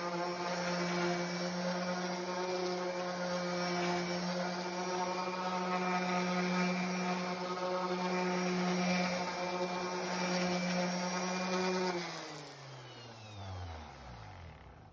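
Electric random orbital sander running with a steady hum while sanding down the surface of a carved, painted wooden sign. About twelve seconds in it is switched off and its pitch falls as the motor winds down.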